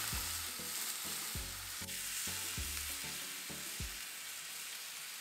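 Meat broth sizzling as it is poured into a hot roasting pan of seared beef rouladen, deglazing the pan; the steady hiss slowly dies down as the liquid settles.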